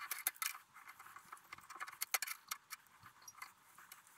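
A tap being turned by hand with an adjustable spanner to cut a thread in a drilled hole: a quiet, irregular string of small metallic clicks and scrapes.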